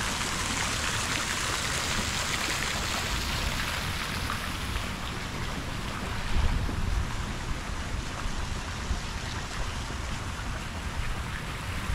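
Splash-pad fountains spraying and splashing into a shallow pool: a steady hiss of falling water that eases somewhat about halfway through. Gusts of wind buffet the microphone with low rumbles.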